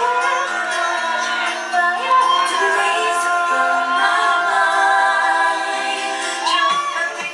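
Background pop music with a woman singing long, gliding notes over the instrumental.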